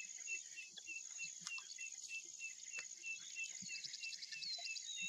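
Savanna ambience: steady high-pitched insect buzzing, a short chirp repeating about four times a second, and a bird singing a brief trill near the end.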